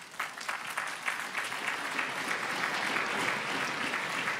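Large audience applauding; the clapping swells over the first second or two and then holds steady.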